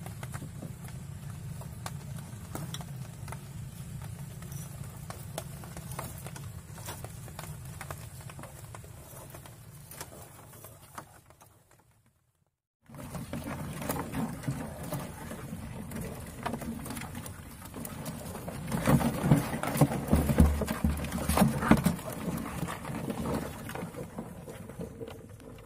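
Mud crabs' legs and claws scrabbling over the wet floor and walls of a plastic tub: a steady patter of light clicks and taps. It breaks off for a moment near the middle, then comes back louder, with heavier knocks in the last part.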